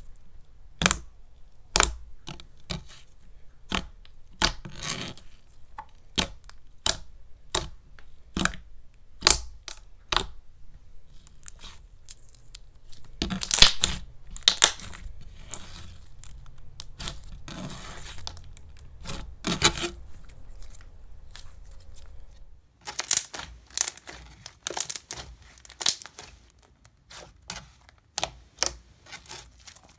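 Thick, glossy glue slime being pressed, poked and stretched by hand, giving an irregular run of sharp clicks and pops, a few a second, thickening into denser clusters about halfway through and again a little later.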